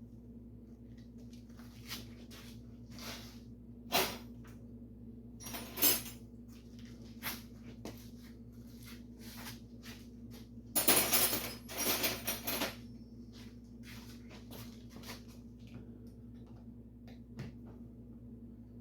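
Workshop handling noises: scattered sharp knocks about four and six seconds in, and a louder stretch of clatter about eleven seconds in, over a steady low hum.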